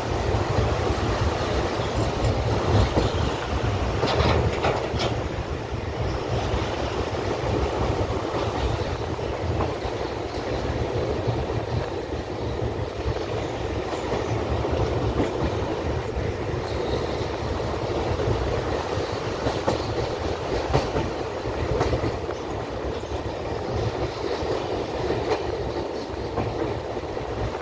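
Passenger train running at speed across a bridge, heard from inside the coach at the window: a steady rumble of wheels on rail with air rushing past and occasional sharp clacks over the rail joints.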